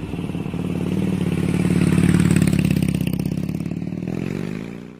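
A motorcycle engine running with a rapid buzzing pulse. It swells over the first two seconds and fades away near the end.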